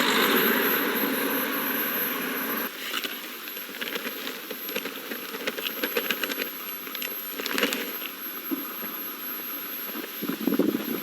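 Gas burner flame roaring steadily, shutting off abruptly between two and three seconds in, followed by scattered clicks and crackles.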